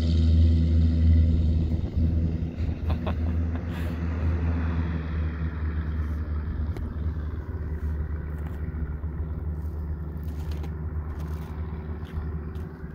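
Single-engine propeller bush plane, its engine running with a steady low drone that slowly fades as the plane moves away.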